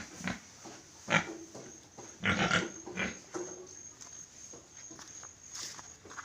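Crossbred Yorkshire–Landrace sows grunting in their pen: a handful of short separate calls, the loudest about a second in and around two and a half seconds in.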